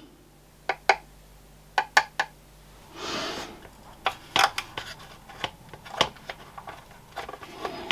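Light clicks and taps of a glue bottle and small strong magnets being handled and pressed into holes in a 3D-printed plastic part, with a short soft rustle about three seconds in and quicker clicking near the end.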